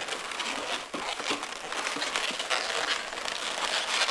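Long latex twisting balloons rubbing and squeaking against each other as they are twisted and threaded through one another by hand, a continuous rustle.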